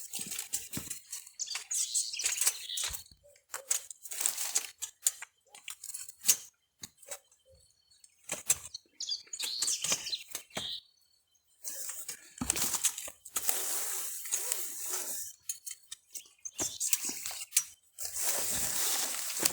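Irregular rustling and crinkling in short bursts, as of litter and dry material being handled and gathered.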